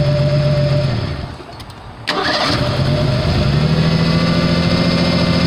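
A 1987 Ford Bronco II's 2.9-litre V6 running, then winding down as it is switched off about a second in; a little after two seconds there is a sharp click and the engine restarts at once, rising to a steady idle. Its ignition timing has just been set to 10 degrees before top dead center, and it starts right away.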